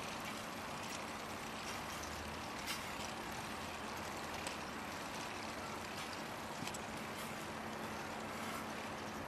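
Plastic K'nex gears of a motor-driven kinetic sculpture turning: a steady whirring with a low steady hum and a few light clicks scattered through it.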